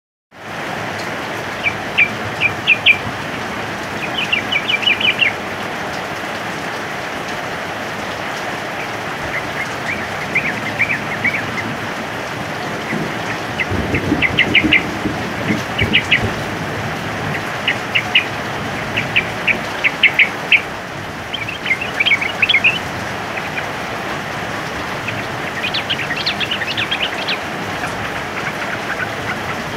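Steady heavy rain, with yellow-vented bulbuls (trucukan) breaking in every few seconds with short bursts of rapid chattering song. A brief low rumble comes about halfway through.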